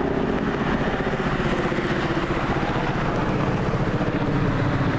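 Large military helicopters flying overhead: a steady, rapid, even beating of the rotors over a continuous engine drone.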